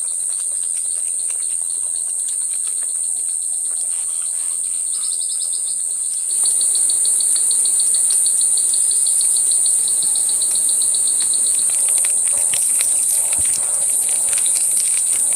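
Forest insects buzz in a steady, high-pitched drone. A rapid, evenly pulsed chirping joins about five seconds in, and the whole chorus gets louder a second later. Scattered light clicks are heard in the second half.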